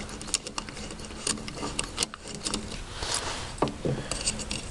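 Scattered light clicks, taps and rubbing of metal parts as an old Wheel Horse carburetor is handled on a workbench and a small part is taken out of it.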